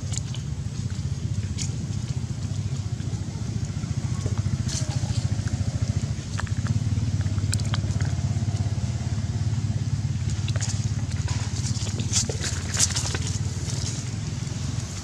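A steady low hum throughout, with small sharp clicks and crackles scattered over it, the loudest cluster about twelve seconds in.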